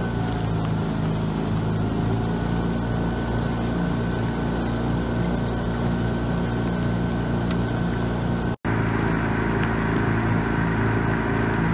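A boat's outboard motor running steadily, with a brief dropout about eight and a half seconds in.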